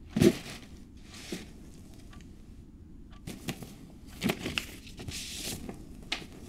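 Tissue paper rustling and crinkling in a series of short bursts as it is pulled from a gift bag, loudest just after the start.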